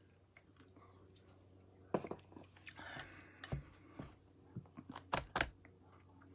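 Hands setting down and adjusting a plastic stamp set case on a craft mat: a scattering of light knocks and clicks with some rustling, starting about two seconds in.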